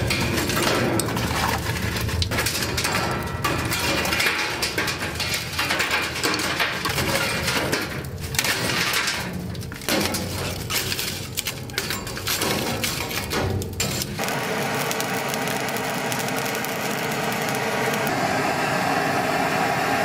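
Lumps of burning charcoal tipped from a chimney starter onto a steel grill grate and shifted about, clinking, knocking and crackling. About fourteen seconds in, a butane torch starts and runs with a steady hiss as it is played on the coals.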